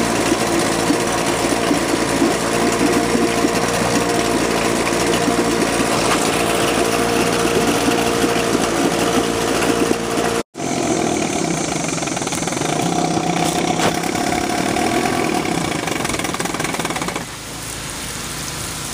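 1988 Sears Gamefisher (Force/Chrysler) 9.9 hp two-stroke twin outboard running steadily in a test tub, its propeller churning the water, with a freshly fitted water-pump impeller. The sound drops out for a split second about ten seconds in, and the engine gets quieter near the end as it is throttled back and the prop wash eases.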